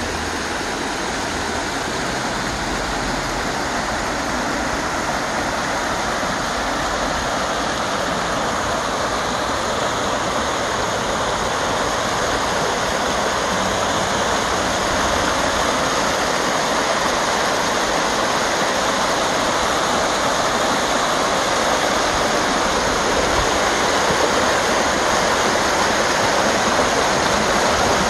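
Steady rush of a small creek cascading over mossy rocks, swelling gradually louder as it comes closer.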